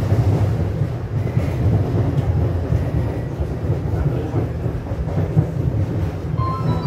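Cabin noise of a moving Taipei Metro C301 steel-wheel train: a steady low rumble of wheels on rail and running gear. Near the end an electronic chime melody starts, the on-board jingle that comes before the terminus announcement.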